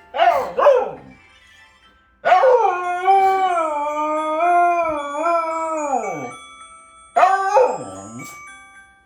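Jindo dog howling along to a Samsung phone's default alarm tune. It gives two short rising-and-falling cries at the start, then one long wavering howl lasting about four seconds, then a shorter arching howl near the end, while the alarm melody plays faintly underneath.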